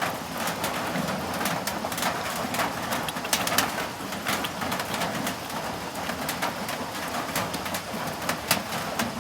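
Rain falling steadily, with many irregular sharp drips and ticks, and a bird calling in the background.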